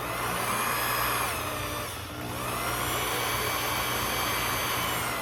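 Small electric motor running steadily with a high whine, its pitch dipping briefly about two seconds in and then picking back up.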